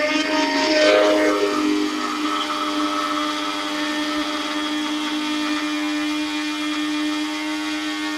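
Small electric blender running steadily as it grinds dry seasoning (nutritional yeast, spices and onion flakes) into a powder: a steady motor hum, loudest about a second in.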